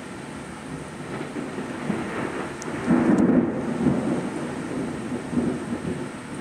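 Heavy rain falling steadily, with a rumble of thunder that builds about two seconds in, is loudest around three seconds in, and fades away over the next couple of seconds.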